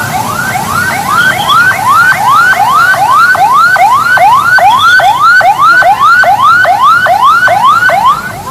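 Fire engine siren sounding in a fast yelp: each tone rises quickly and then drops back abruptly, about three times a second.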